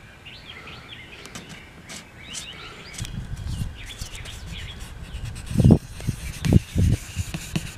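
Birds chirping for the first few seconds, then a small blade scraper rubbing leftover CA glue and finish off a guitar's spruce top, with a few louder strokes near the end.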